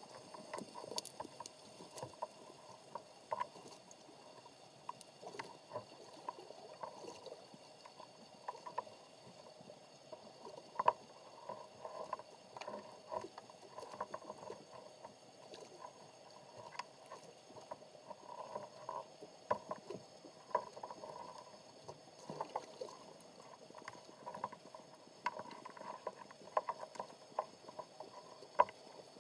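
Underwater ambience picked up through a camera's waterproof housing: a faint, irregular crackle of short clicks and knocks, several a second, over a soft rustling background and a faint steady high whine.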